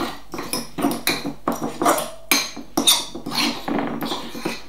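Cutlery mashing softened butter and cinnamon in a bowl: repeated irregular clinks and scrapes of metal against the bowl, about two or three a second, with soft squelches between them.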